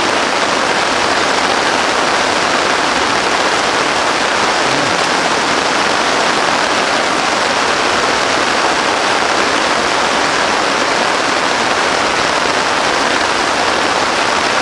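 Heavy rain falling steadily: a dense, even hiss that does not let up.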